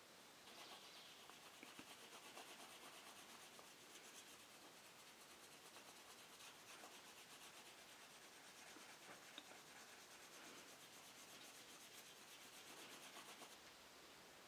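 Faint, quick, repeated rubbing strokes of a small wooden stick worked along a leather chisel holster.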